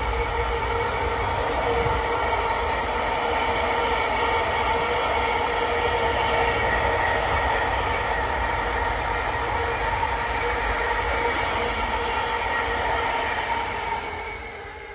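Container wagons of a freight train rolling past on jointless track, the wheels giving a steady high squeal on the curve. The sound fades away near the end as the last wagon passes.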